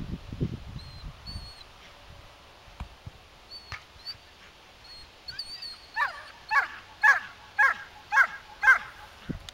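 German Shepherd giving six high yelps in quick succession, about two a second, each falling in pitch. Faint bird chirps sound behind.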